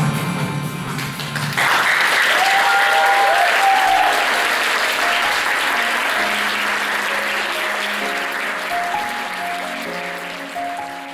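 Guitar-led music cuts off about a second and a half in and an audience breaks into applause, which slowly fades away. Soft, slow melodic music comes in under the clapping about halfway through.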